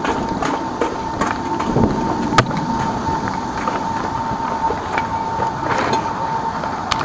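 High-pressure drain jetter running steadily, a constant high whine over engine and pump noise, with footsteps ticking over it.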